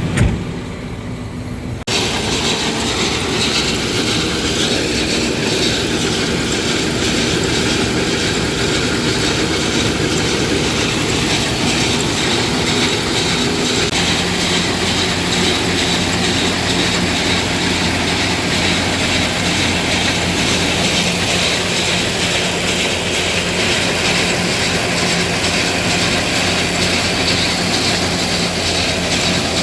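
A large vehicle or farm machine running steadily and loudly. It starts abruptly about two seconds in, and a low engine hum grows stronger about halfway through.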